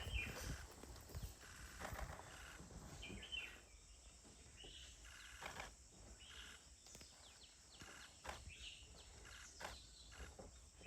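Quiet forest ambience with scattered short bird chirps and calls, several of them brief rising or falling notes, and a few faint knocks.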